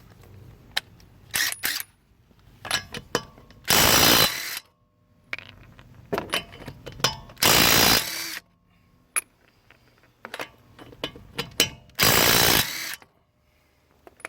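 DeWalt DCF880 20V cordless 1/2-inch impact wrench hammering in three bursts of about a second each, with clicks and knocks of handling between them.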